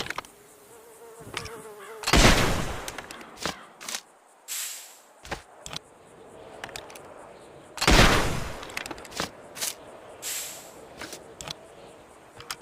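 Two musket shots about six seconds apart, each a sharp blast followed by a decaying tail of about a second. Sharp clicks and short high hissing sounds come between the shots, and a buzzing tone is heard before the first shot.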